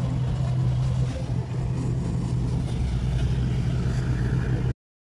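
A steady low engine drone over background noise, which cuts off suddenly about four and a half seconds in.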